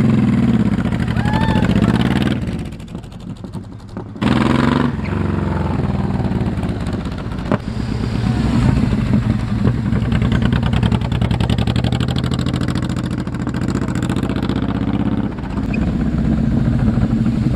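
Honda VTX1800 motorcycle's big V-twin engine running on a ride, its pitch rising and falling as it accelerates. It drops quieter about two and a half seconds in, then comes back loud on the throttle about four seconds in and pulls steadily for the rest.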